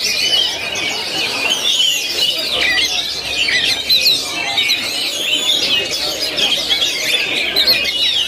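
Several caged oriental magpie-robins singing at once in a contest session: a dense, loud tangle of overlapping whistles, warbles and trills with no pause.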